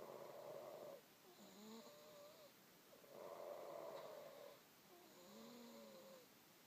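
A person snoring faintly in slow, even cycles: a rasping snore about every three and a half seconds, with a thin wavering whistle between snores.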